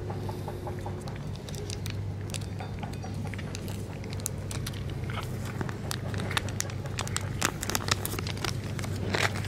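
Stray cats chewing and smacking as they eat grilled fish and chicken from metal dishes: irregular sharp wet clicks, more frequent in the second half. A steady low hum runs underneath.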